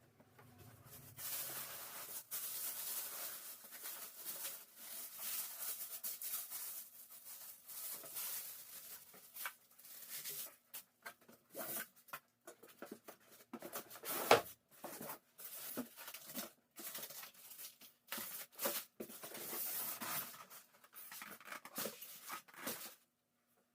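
Soundbar packaging being unboxed by hand: rustling and tearing in irregular stretches, with scattered clicks and knocks, the loudest knock about fourteen seconds in. It stops shortly before the end.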